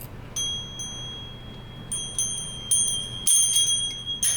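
Small metal parts of a magnetic fidget toy clicking together, about eight light strikes, each leaving a high, bell-like ring that hangs on briefly.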